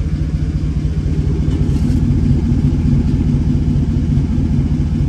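GMC Sierra pickup's exhaust idling, heard up close at the tailpipe: a loud, steady, deep rumble with a fast, even pulse. A 4-inch dual exhaust tip is fitted over the open 3-inch pipe to compare the sound.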